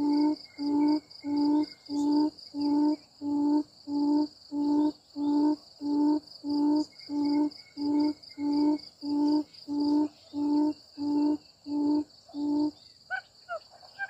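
Quail call used to lure birds into the trap: one low hooting note with overtones, repeated evenly nearly twice a second, stopping about a second before the end. A steady, pulsing high insect trill runs underneath, and a few quick high chirps come near the end.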